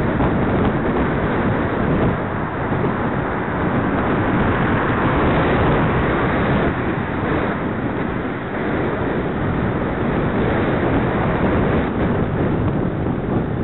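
Steady wind buffeting on the microphone of a camera riding on a moving bicycle, a loud, even rushing noise with no speech.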